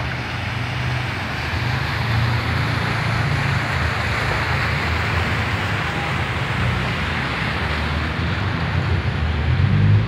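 Steady noise of road traffic on a flooded street: a continuous hiss of water with a low engine rumble underneath, a little louder near the end.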